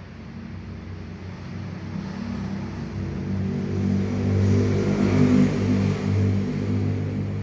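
A motor vehicle's engine passing by, growing louder to a peak about five seconds in and then fading.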